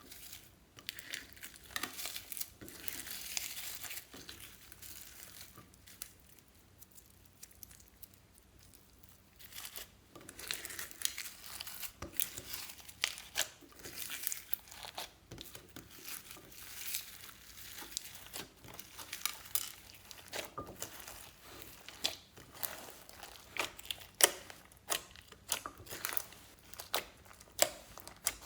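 Slime mixed with beads being squished and kneaded by hand: crackling and popping with many sharp clicks. It goes quieter for a few seconds partway through, then resumes.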